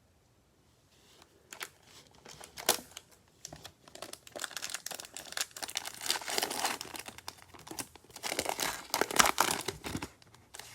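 Cellophane trading-card pack wrapper crinkling and being torn open, with crackles and sharp snaps. It starts about a second in and is busiest in the second half.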